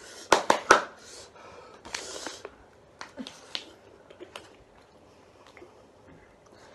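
Noisy eating of very hot, spicy noodles from bowls: a quick run of sharp clicks of cutlery on the bowls in the first second, then loud sniffing, slurping and hard breathing, with a few lighter clicks. The breathing is a reaction to the chilli heat.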